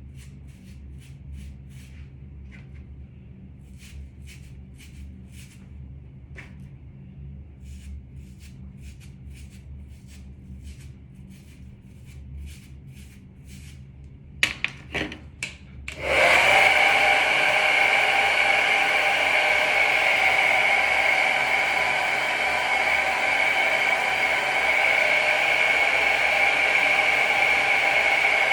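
Faint quick ticks of handling, then a few sharp clicks, then a handheld hair dryer switched on about halfway through, blowing steadily with a high whine.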